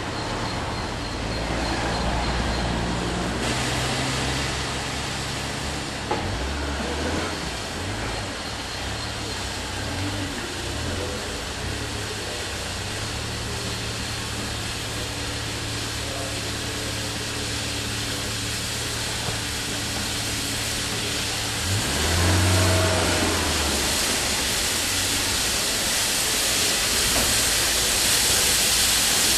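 Steam locomotive No.70000 'Britannia', a BR Standard Class 7 Pacific, approaching slowly, with a steady hiss of steam that grows louder from about three-quarters of the way in. A low drone runs underneath.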